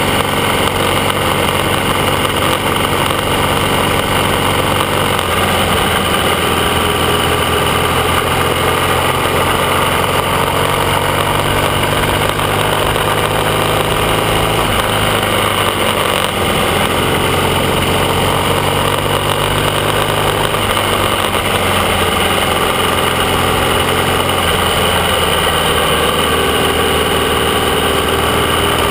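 AJS 650 CSR parallel-twin motorcycle engine running steadily under way, heard from the rider's seat, its pitch shifting a few times as the speed changes, with wind noise over it.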